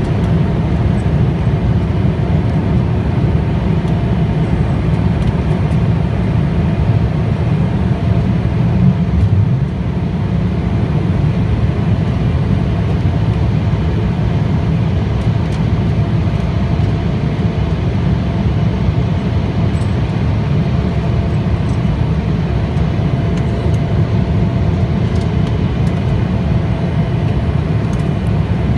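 Steady cabin noise of an Embraer ERJ-175LR in its climb after takeoff: a low rumble from its wing-mounted GE CF34-8E turbofans and rushing air, with a faint steady hum above it. The level dips slightly about ten seconds in.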